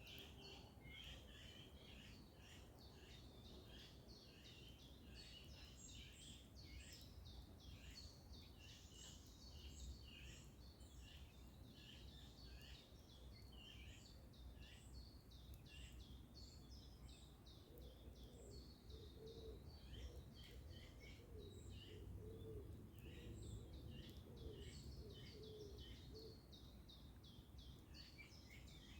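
Faint morning chorus of many songbirds chirping and singing in short quick notes over a low steady rumble. In the second half a lower call repeats several times beneath the chirping.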